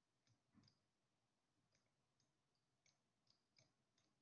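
Near silence, with a few very faint, scattered clicks.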